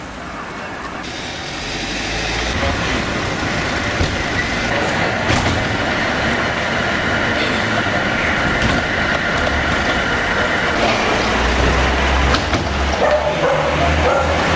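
Street noise with vehicle sound.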